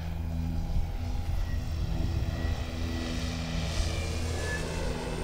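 Electric RC model airplane flying past: the brushless outrunner motor driving a large two-blade propeller gives a steady propeller drone with a faint whine. It grows louder and rougher as the plane passes close.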